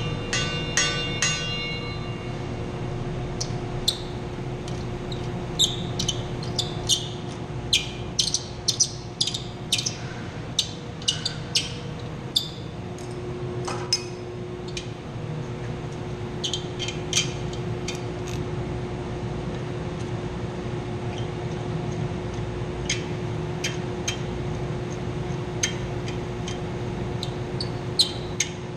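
Metal tools and bolts clinking and tapping in irregular sharp clicks during work on a chilled-water pump strainer, over the steady hum of plant-room machinery. A quick, even run of clicks comes in the first couple of seconds.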